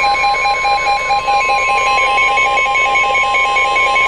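Emergency Alert System tornado-warning alert tone: a steady single tone with a pulsing beep over it, about four beeps a second.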